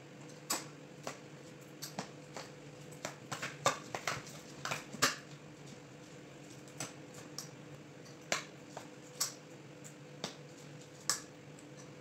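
Irregular light clicks and taps of hands working rice filling out of a metal bowl and pressing it into hollowed-out zucchini, over a steady low hum.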